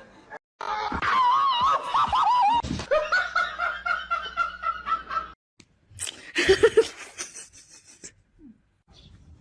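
Laughter: a high, wavering laugh that turns into a run of rhythmic laughing pulses and cuts off suddenly about five seconds in. A shorter burst of sound follows around six to seven seconds.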